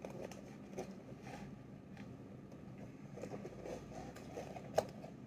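Faint handling noises from a cardboard box being turned over in the hands: light taps and rustles, with one sharper click near the end.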